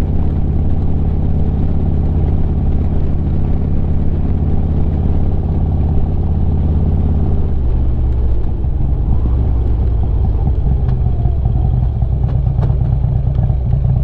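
Harley-Davidson Street Glide's V-twin engine running on the move, heard from the handlebar with wind and road noise; the engine note changes about halfway through.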